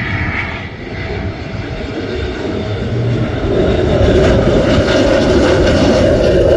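Jet noise from a twin-engine Eurofighter Typhoon flying in on approach with its landing gear down, growing steadily louder as it draws nearer and holding loud over the last few seconds.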